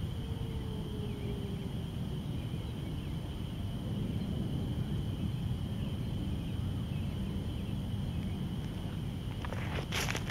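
Outdoor evening ambience: a steady low rumble under a continuous high-pitched chorus of small calling animals, with a few sharp clicks near the end.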